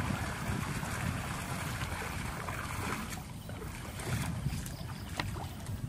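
Shallow muddy water sloshing and dripping as water weeds are pulled up out of it by hand, with scattered small splashes and ticks. Wind rumbles on the microphone throughout.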